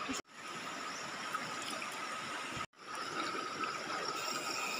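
Shallow river water running steadily, with a faint steady high hum under it. The sound drops out for a moment twice.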